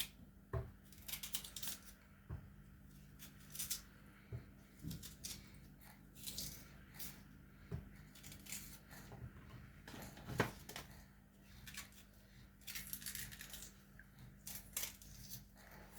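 A knife scraping and cutting at food by hand in short, irregular strokes, with a few soft knocks, the loudest about ten seconds in. A faint steady hum runs underneath.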